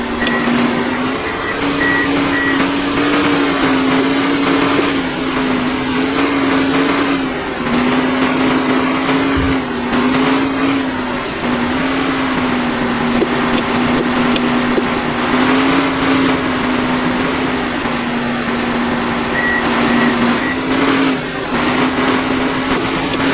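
Backhoe loader running steadily with a constant whining drone that shifts slightly in pitch now and then. Short high electronic beeps sound in quick groups near the start and again near the end.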